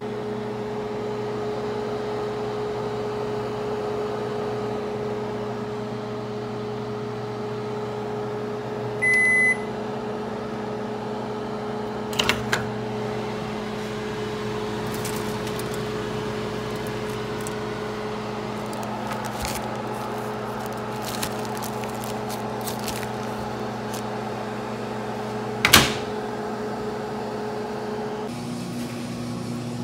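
Panasonic HomeChef 4-in-1 multi-oven running with a steady hum, one short beep about nine seconds in. There are clicks around twelve seconds, a sharp click near 26 seconds, and the hum changes pitch shortly before the end.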